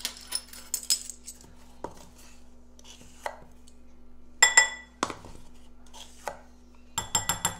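Metal measuring spoons clinking and scraping against a glass bowl and a baking powder tin as baking powder is spooned out. A ringing clink comes a little past halfway, and a quick run of clicks near the end.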